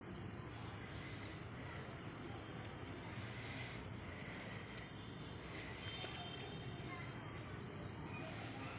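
Faint steady outdoor background noise with a few faint high chirps.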